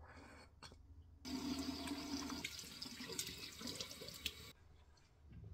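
Bathroom sink tap running for about three seconds, with water splashing as the face is rinsed. It stops about four and a half seconds in.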